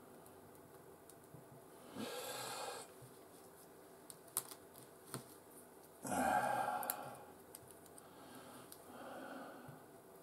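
Handling sounds at a workbench as small wood pieces are fitted: two short rubbing or scraping bursts, the second louder, with a few light clicks between them and a softer rub near the end.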